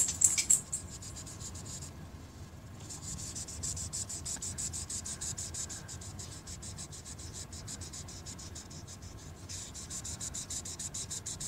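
Imagine Ink marker scribbling quickly back and forth on a coloring-book page: a fast, even run of short scratchy strokes, with a brief pause about two seconds in.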